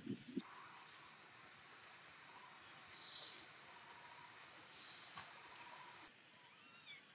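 Steady high-pitched drone of insects, crickets or cicadas, that drops in level near the end, with two faint high kitten mews in the middle.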